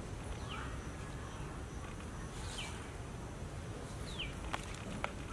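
Three short, high animal squeaks, each falling in pitch, spaced a second or two apart, over a steady low rumble; two light clicks near the end.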